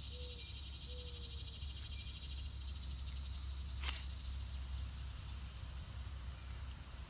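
Steady high-pitched trilling of insects, a cricket-like chorus, over a low rumble of wind on the microphone. There is one sharp click about four seconds in.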